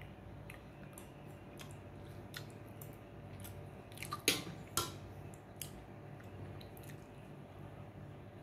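Faint scattered clicks over a low steady hum, with two louder sharp knocks close together about four and a half seconds in.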